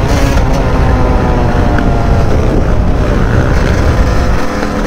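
Yamaha YZ250 dirt bike engine running under way, its pitch easing down gradually as the bike slows. Heavy wind noise rumbles on the microphone and thins near the end.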